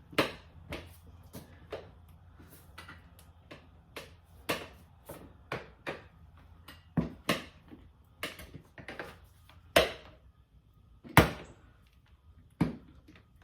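Tire iron clacking and knocking against the motorcycle wheel rim and tire changer as it hooks the tire bead and levers it over the rim: a string of irregular sharp knocks and scrapes, the loudest about ten and eleven seconds in.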